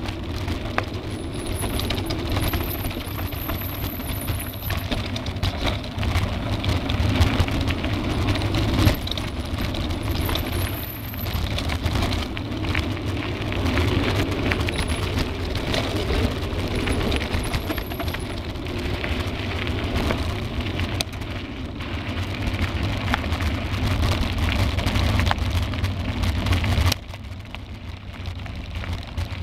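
Mountain bike riding fast down a rough forest singletrack, heard from a handlebar-mounted camera: continuous rattling and clattering of the bike and camera mount over roots and stones, with a low wind rumble on the microphone. The noise drops suddenly near the end.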